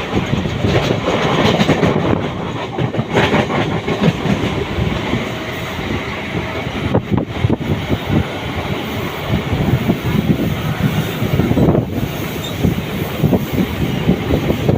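Mumbai suburban local electric train running along the track, its wheels clattering over the rails with a steady rumble.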